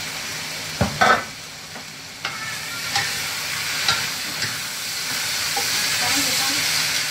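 Cabbage stir-frying in a stone-coated wok, sizzling steadily and growing louder in the second half, while a wooden spatula scrapes and knocks against the pan several times. A loud clatter about a second in.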